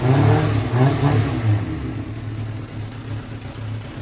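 2000 Kawasaki Ninja ZX-7R's 750 cc inline-four engine revved with a couple of throttle blips in the first second or so, then settling into a steady idle.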